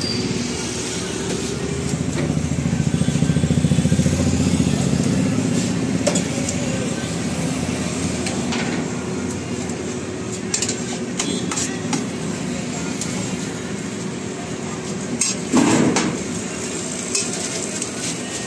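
Food-truck kitchen ambience: a steady low engine-like rumble that swells about two to five seconds in, with metal utensils clinking and knocking on steel trays, the sharpest knock about three-quarters of the way through.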